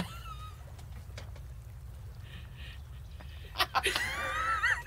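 A man laughing loudly from about three and a half seconds in, high-pitched and wheezing, his voice sliding up and down in broken pieces over a low steady hum.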